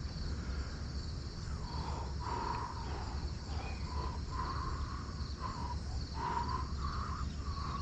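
Insects chirping steadily, over a low steady rumble, with short, soft scattered sounds every second or so.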